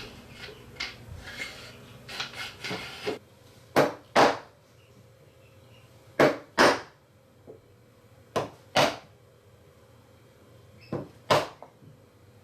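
Sharp knocks on wood, in four pairs of two quick blows each, a few seconds apart, with lighter taps and scrapes in the first few seconds.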